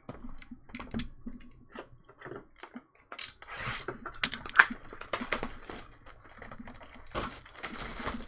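Plastic wrap crinkling and tearing, with cardboard clicks and taps, as sealed trading-card boxes are opened. It starts as scattered clicks, and the crinkling grows denser and louder after about three seconds, with two sharp snaps around four to five seconds in.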